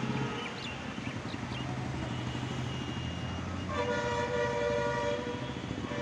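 Steady low hum of city traffic, with a horn blaring for about a second and a half around four seconds in.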